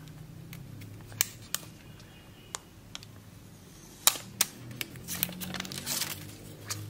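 Small plastic USB-C power adapter being handled: a string of sharp clicks and taps, then the crinkle of its protective plastic film being peeled off near the end.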